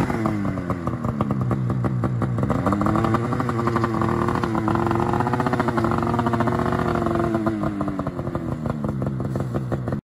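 Two-stroke snowmobile engine running with the throttle blipped, its pitch wavering, then revs climbing and easing back over the middle seconds. It stops suddenly near the end.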